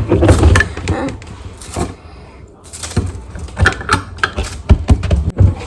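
Plastic fidget toys being handled, giving a rapid, irregular run of clicks and knocks.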